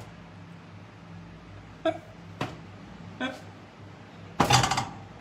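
A man's short vocal sounds and laughter: a few brief voiced bits, then a louder burst of laughter near the end, over a steady low hum.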